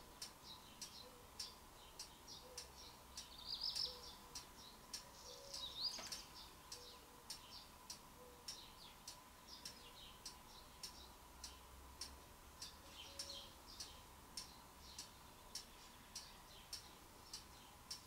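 Faint, steady ticking, about two ticks a second, like a clock. A few birds chirp over it, loudest around four and six seconds in.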